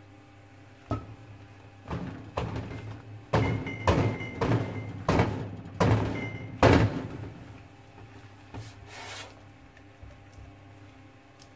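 A run of knocks and clunks as soapmaking utensils are handled on a stainless steel counter: a silicone spatula set into and knocked against a ceramic slow-cooker crock, and a silicone soap mold shifted about. A few of the knocks ring briefly. The knocking is heaviest in the middle and dies down after about seven seconds.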